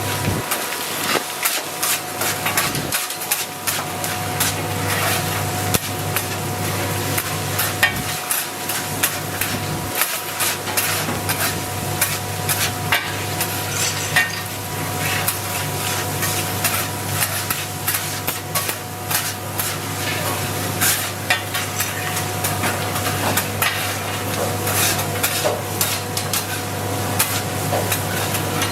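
Metal utensil clattering and scraping against a pan in quick, irregular strokes while food fries, over a steady machine hum.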